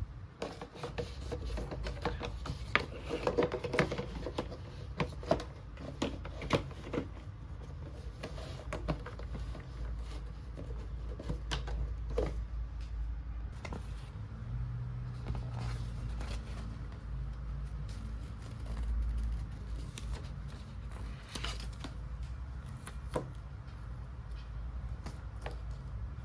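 Small plastic toy kitchen pieces being handled and set down: a run of light clicks and taps, busy for the first several seconds and sparser after that, over a low steady hum.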